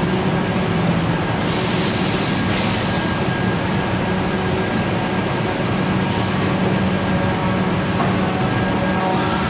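Kolmag M300 CNC nesting router running with its dust extraction: a loud, steady machine drone with a held hum. A few short spells of high hiss come over it, near the second and fourth seconds and again at the end.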